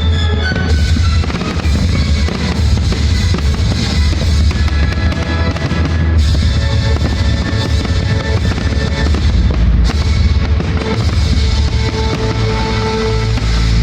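Loud music with drums for a fireworks display, with firework bursts and booms mixed into it.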